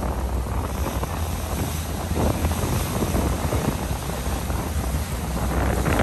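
Wind buffeting the microphone on a boat at sea, over a steady low rumble from the boat and the water.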